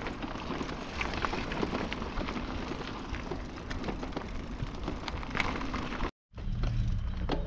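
Bicycle tyres rolling over a gravel road: a steady crunching noise with scattered ticks of small stones. It cuts out abruptly about six seconds in, and a lower rumble follows.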